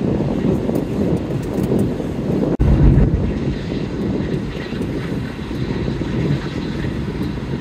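Steady low road and engine rumble heard inside a van cruising on a motorway. It breaks off for an instant about two and a half seconds in, then comes back briefly louder.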